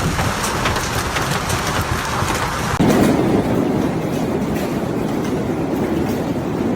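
Hailstones pelting hard surfaces with a dense clatter of sharp impacts. About three seconds in it switches abruptly to a louder, deeper, steady roar of hail.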